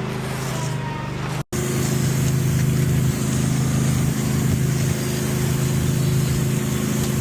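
An engine running steadily. It cuts out abruptly about one and a half seconds in and comes back slightly louder.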